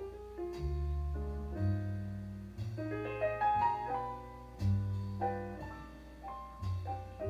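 Jazz playing from a vinyl record through a valve amplifier and loudspeakers: a piano melody over low bass notes each held about a second.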